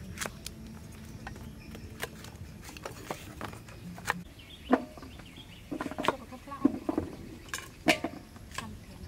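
Knife cutting through unripe green mango and knocking on a wooden chopping block: irregular sharp taps, about a dozen, with a denser cluster in the second half.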